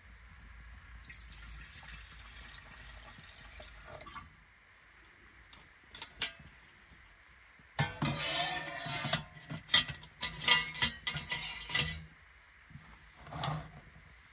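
Stainless steel cook pot clanking and scraping against the stainless steel windshield as it is set down over a lit spirit burner, a run of loud metal knocks in the second half. A soft hiss in the first few seconds, and a couple of lighter metal clinks before and after.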